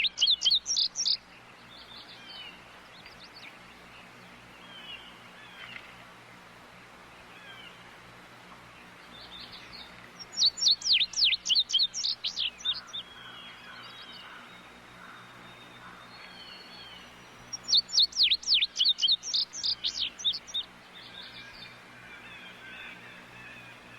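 A songbird singing a loud, rapid series of downward-sweeping whistled notes, about six a second, in phrases of two to three seconds repeated about every seven seconds. Fainter chirps of other birds sound between the phrases.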